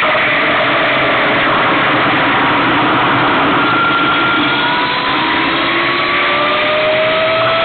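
Wind and road noise from a 2009 Brammo Enertia electric motorcycle on the move, with the thin whine of its electric drivetrain gliding slowly up in pitch from about halfway through as the bike gathers speed.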